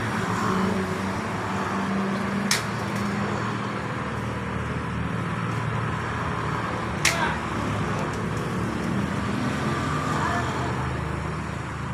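Two sharp knocks about four and a half seconds apart as a heavy wooden cable reel is pushed by hand up a ramp of steel pipes, over a steady low background rumble.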